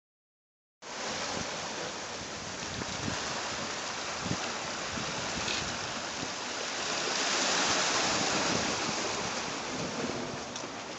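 Waves breaking and washing over granite rocks at the shoreline, a steady rush of surf that begins about a second in and swells around the middle.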